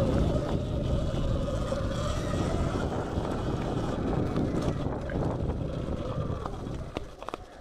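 Sur-Ron Light Bee X electric dirt bike riding fast along a dirt trail: a steady electric-motor whine over wind buffeting and the rumble of tyres and suspension on rough ground. The whine fades after the first couple of seconds, the sound drops off near the end, and a few sharp knocks come just before it ends.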